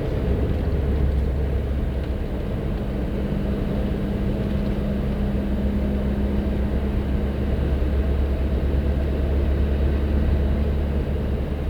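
A car driving in a strong bora wind: steady low rumble of engine, tyres and wind, with a faint steady hum from about two to seven seconds in.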